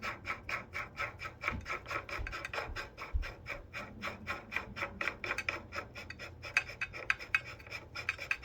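Steering head of a Honda C70 being tightened down on its freshly greased ball bearings: a quick, even run of small metallic clicks and rasps, several a second.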